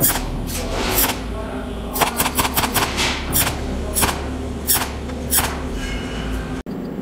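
Pulsed cold welding machine firing spot welds through a tungsten electrode: a series of sharp electric zaps, one for each weld spot. They come spaced out at first, then in a quick run about two seconds in. A steady low hum runs underneath, and the sound cuts off abruptly near the end.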